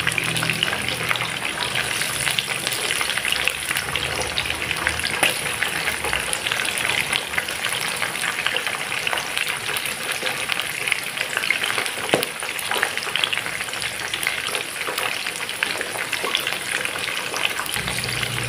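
Corn ribs (quartered sweet corn cobs) frying in hot oil in a non-stick pan: a steady, dense sizzle with scattered small crackles. A few clicks come from a metal spatula turning the pieces. The corn was dried after washing, so it sizzles without popping or spattering.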